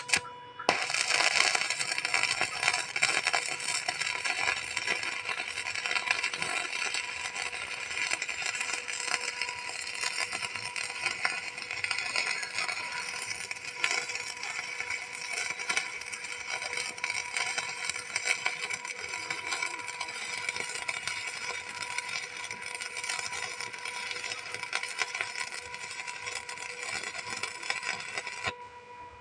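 Stick (arc) welding with a small inverter welder: the electrode's arc crackling and sizzling steadily as it burns. It strikes about a second in and stops just before the end.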